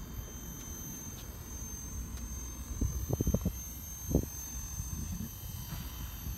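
Blade 230S electric RC helicopter flying at a distance: a steady high-pitched motor and rotor whine over a low rumble, with a few brief thumps about halfway through.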